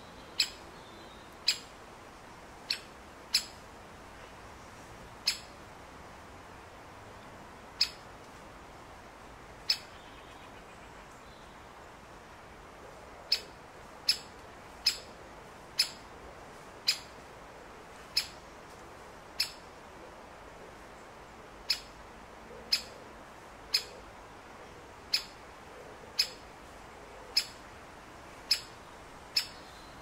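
Great spotted woodpecker giving its sharp single "kik" call, about twenty times at irregular intervals of roughly a second, with a pause of a few seconds near the middle.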